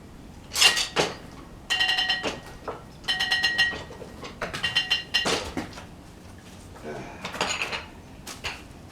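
A string of irregular metal clanks and rattles from the old Frick sawmill's carriage and gearing being worked by hand, several hits ringing on briefly like struck steel.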